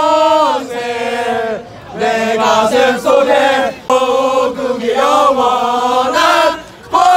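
A crowd of university students singing a cheer song together in unison, loud sung phrases with short breaths between them.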